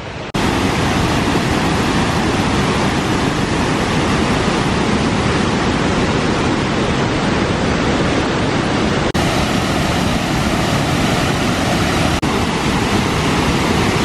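Steady loud rush of water pouring down the Kuang Si waterfall's tiered cascades into the pools, broken by two momentary dropouts about nine and twelve seconds in.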